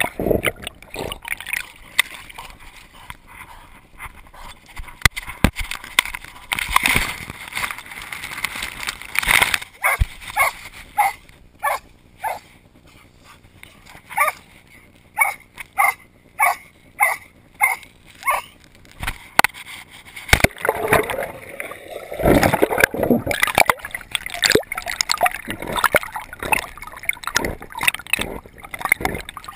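Muddy river water sloshing, gurgling and splashing around a GoPro camera as it goes under and comes up. Through the middle there is a run of short, evenly spaced sounds, about one and a half a second.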